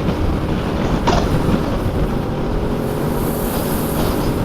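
Heavy wind noise on the microphone of a moving motorcycle, with its engine running steadily underneath; a brief click about a second in.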